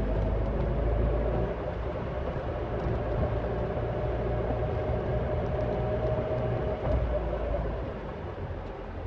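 Caterham Super Seven 1600's engine running steadily on the move, with a low rumble; it quietens a little about three-quarters of the way through.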